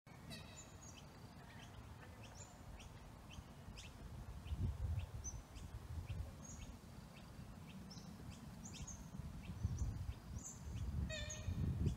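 Birds calling outdoors: a steady scatter of short, high chirps, with a harsher call near the start and again near the end. A low rumbling noise swells in and out underneath.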